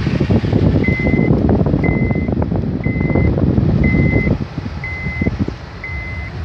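Car driving on a sandy dirt road, a loud rumble of engine and tyres that eases about four seconds in. Over it an electronic warning beep repeats about once a second, six times, each beep a steady high tone.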